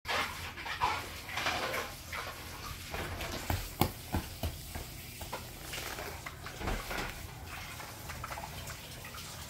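A child's quick running footsteps thudding on the floor about halfway through, a few short knocks over quiet room noise.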